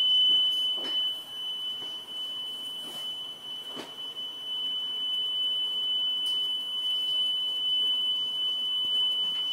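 Steady 3 kHz test tone played back from tape on a TEAC X-10M reel-to-reel deck running at 19 cm/s (7½ ips), holding one even pitch. The tone measures about 0.03% weighted wow and flutter. Two faint clicks come about one and four seconds in.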